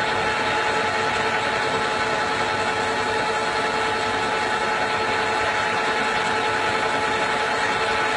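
Metal lathe running steadily, turning a titanium muzzle brake on a rifle barrel: a constant machine hum with a few steady tones over an even noise.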